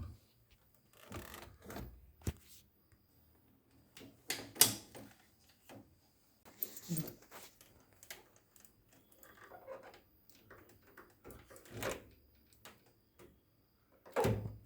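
Irregular clicks, knocks and rustling of washing machine drain parts being handled, with a sharp click about two seconds in and a louder knock about four and a half seconds in.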